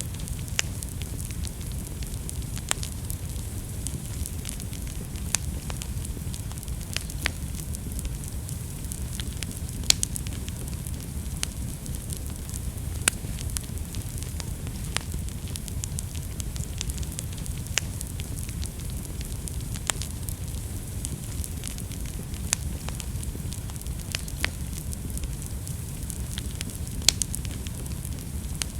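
Wood fire burning in a fireplace: a steady low rumble of flames with frequent irregular sharp crackles and pops, a few louder pops standing out.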